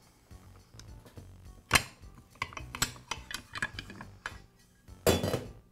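Metal clinks and knocks as a Skilsaw's upper blade guard is worked loose and lifted off the saw body, with one sharper knock about two seconds in and a short scraping rattle near the end.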